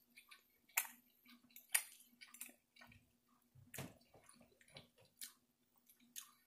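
Faint wet chewing and mouth clicks from a person eating, scattered irregularly with no rhythm.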